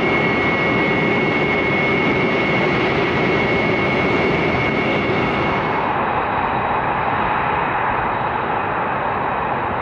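Jet engines of a formation of taxiing F-22 Raptors (Pratt & Whitney F119 turbofans), a loud steady jet noise with a high whine. About six seconds in the sound changes, losing its highest hiss.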